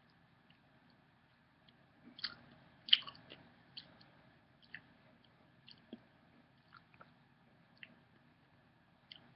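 Faint chewing close to the microphone: scattered soft wet clicks and smacks of the mouth, the loudest about three seconds in.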